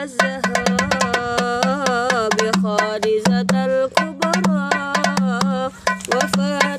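Small metal-bodied darbuka struck by hand in a quick, busy rhythm of sharp taps, over a sholawat melody with a pulsing low note underneath.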